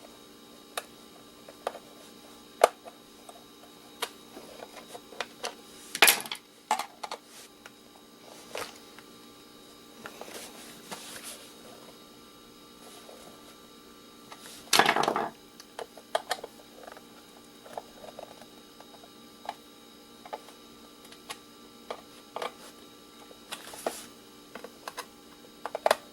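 Scattered clicks and taps of a knife tip working triangle security screws loose, with louder scraping rattles about six seconds in, again near the middle, and near the end.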